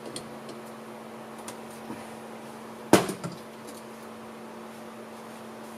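A metal hand tool knocks sharply once against the golf cart's engine about three seconds in, with two lighter knocks right after and a few small clicks around it. A shop fan hums steadily underneath.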